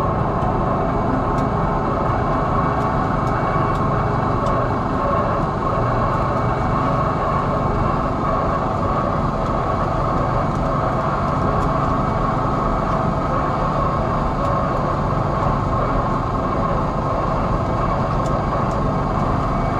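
Ship's anchor windlass running steadily, heaving in a wire rope to haul up the anchor chain: a steady mechanical rumble with a constant whine over it.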